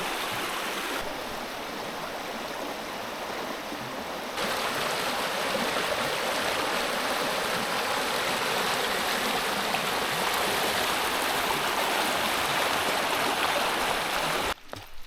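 Stream water rushing steadily, with sudden jumps in level about a second in and about four seconds in, and cutting off near the end.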